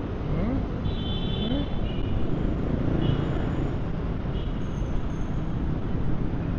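Steady rumble of city road traffic, with a few faint short high tones about a second in.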